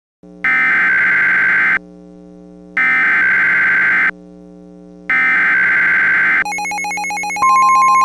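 Three loud warbling data bursts of an Emergency Alert System SAME header, each a little over a second long and about a second apart, over a low steady hum. After the third, a buzzing tone starts, and about seven seconds in the steady 1050 Hz NOAA Weather Radio warning alert tone comes in, signalling a new warning.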